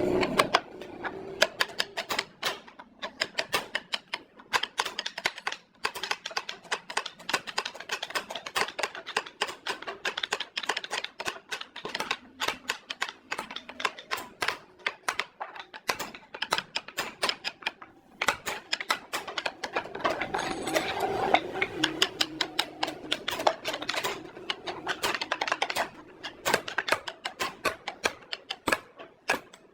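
Rapid, irregular sharp taps and clicks, several a second.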